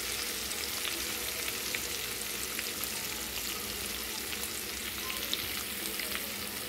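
A tempering of seeds, dal, garlic, ginger, curry leaves and green chillies sizzling steadily in hot oil in a kadai, with many small crackling pops.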